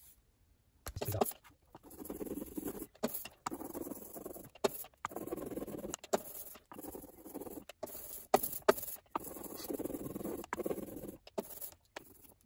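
A rubber brayer (ink roller) rolling back and forth through tacky lino-printing ink, inking a lino block. It goes in repeated strokes of about a second each with short breaks and a few sharp clicks, starting about a second in.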